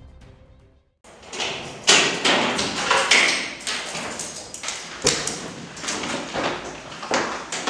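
Starting about a second in, a run of irregular knocks and thuds against a door as it is forced open.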